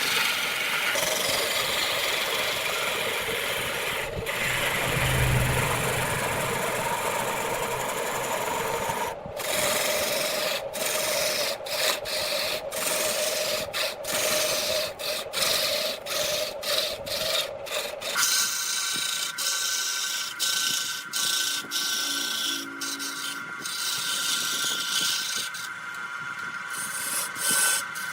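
Wood being cut on a wood lathe: a continuous scraping hiss of a turning tool against spinning wood, broken by many short gaps partway through. About two-thirds of the way in the sound thins and a steady high-pitched hum joins it.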